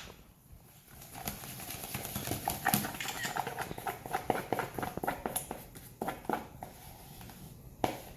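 A run of quick, irregular clicks and taps, starting about a second in and going on until near the end.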